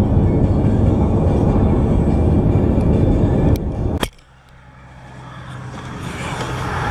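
Music over the steady rumble of a car driving, which cuts off abruptly about four seconds in; after the cut a much quieter sound builds steadily louder.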